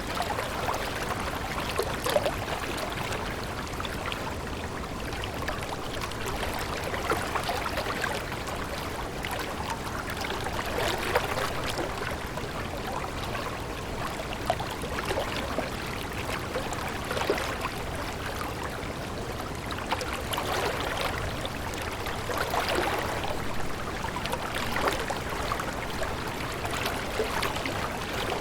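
Stream water flowing steadily, with small irregular splashes and trickles over the constant rush.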